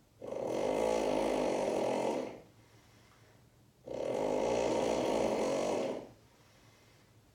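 A person snoring: two long snores of about two seconds each, with a quiet pause of about a second and a half between them.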